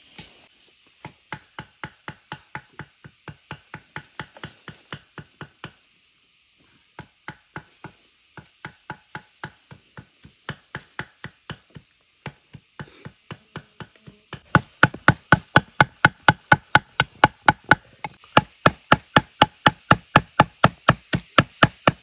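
A knife mincing bird meat and bone on a wooden board, with rapid, even chops about four a second. There is a brief break about six seconds in, and the chopping is louder over the last third.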